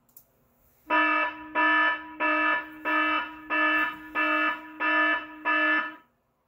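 Electronic alarm buzzer sounding eight times in a steady rhythm, a harsh buzzing tone of one fixed pitch repeated about every two-thirds of a second.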